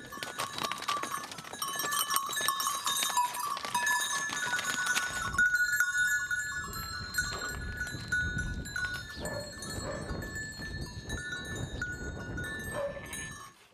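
A flock of sheep on the move, the bells they wear clanking and jingling continuously, with many overlapping ringing tones.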